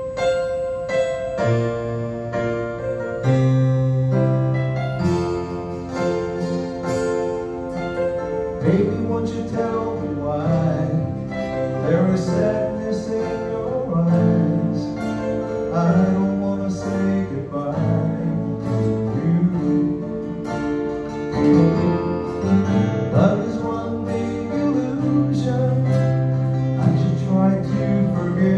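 Small band playing live: acoustic guitars strumming over sustained keyboard chords and low bass notes, the strumming coming in strongly about eight seconds in.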